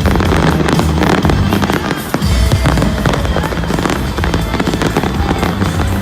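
Fireworks bursting and crackling in rapid succession over loud music with a heavy bass line.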